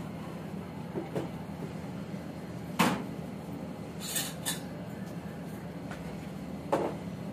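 Clatter of a plastic cooking pot being handled inside a microwave oven: a few knocks, the loudest about three seconds in, and two sharp clicks a little later, over a steady low hum.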